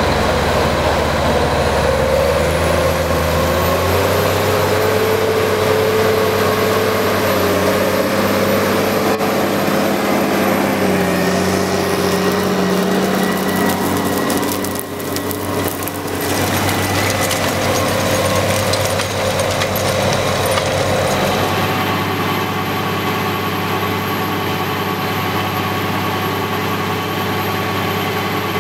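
Large farm tractor's diesel engine running steadily under load, pulling a slurry tanker with a trailing injector through a field, with a high whine over the engine note. The sound changes abruptly about halfway through and again about two-thirds of the way in, as a different tractor rig is heard.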